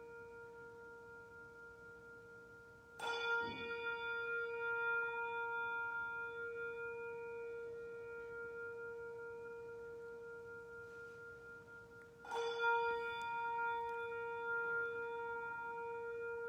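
A bell struck twice, about nine seconds apart. Each stroke sets off a cluster of ringing overtones that fade slowly over a steady, lasting hum.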